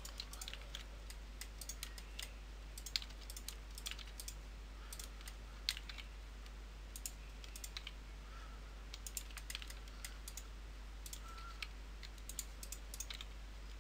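Computer keyboard keys and mouse buttons clicking at an irregular pace, faint, as a 3D model is edited in Blender: shortcut keys and right, middle and shift-clicks.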